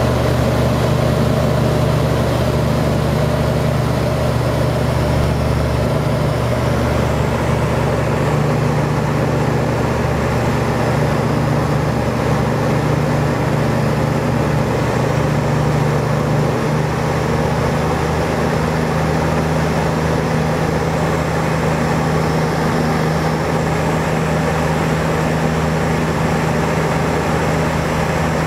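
Light aircraft's engine and propeller droning steadily, heard from inside the cabin in level flight.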